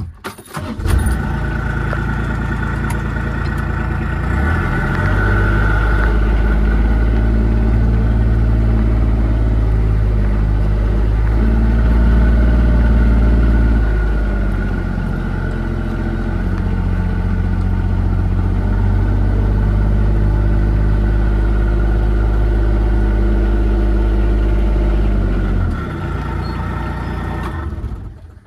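A motor vehicle's engine running steadily at low revs, its pitch stepping up and down a few times, then dropping away near the end.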